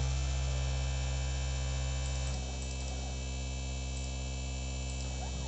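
CNC 3018 PRO's 775 DC spindle motor running at a steady whine, a little quieter from just after two seconds in. The spindle tip runs in a circle rather than in one spot because a mis-centred part holds it off-axis.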